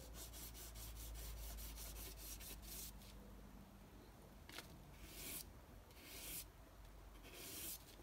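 Faint rubbing of a small metal contact piece from a neutral safety switch back and forth on sandpaper: a quick run of short scratching strokes for the first few seconds, then a small click and a few separate longer scrapes. The sanding cleans the contact's surface until it is shiny, to give good electrical contact.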